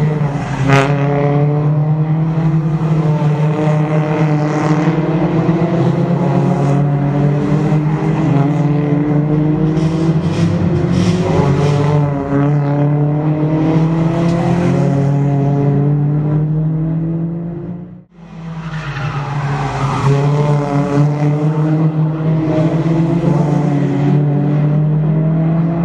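Toyota Altis one-make race cars' engines accelerating out of a corner, their note rising in pitch, over a steady low drone. The sound drops out briefly about two thirds of the way through, then the engines rise again.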